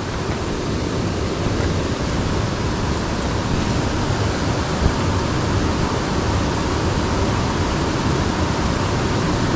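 Steady, even rushing of water flowing along a small ditch, with no distinct events.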